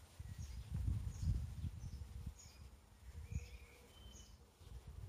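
A small songbird chirping over and over, short high chirps about two a second. Irregular gusts of wind buffet the microphone with a low rumble, loudest about a second in.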